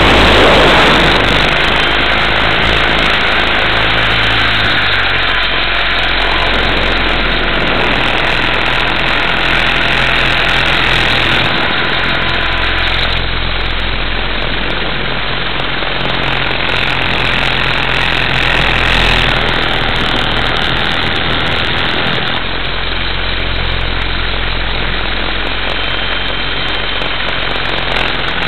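Multiplex Funcopter electric RC helicopter's motor and rotor running steadily in flight, heard from its onboard camera as a loud continuous drone whose pitch steps a little a few times as the throttle changes.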